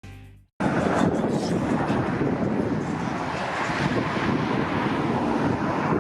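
Strong wind blowing over the microphone, a loud steady rushing noise that cuts in abruptly about half a second in.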